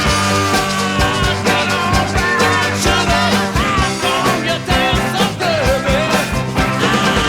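Background rock music with a steady drum beat and a bending lead melody.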